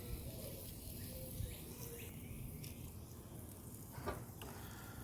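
Faint steady background with a few light clicks, two of them close together about four seconds in.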